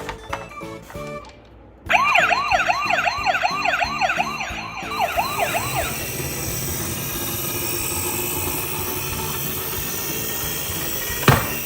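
Electronic siren of a toy ambulance minicar wailing in a fast rising-and-falling yelp, about three sweeps a second; it drops out briefly and cuts off about six seconds in. Two sharp knocks come near the end.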